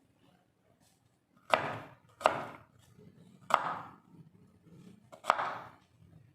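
Kitchen knife cutting food on a cutting board: four separate, unevenly spaced chops, each fading quickly.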